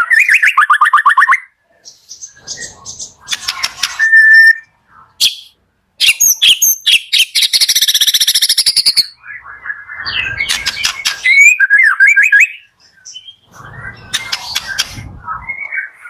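White-rumped shama singing a varied song in separate phrases of clear whistles, rapid trills and harsh rattling notes, with brief pauses between phrases.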